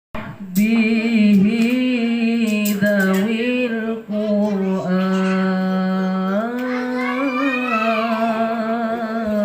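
A solo voice singing sholawat, an Arabic devotional chant, in long held notes with ornamented melismatic turns. The voice comes in about half a second in.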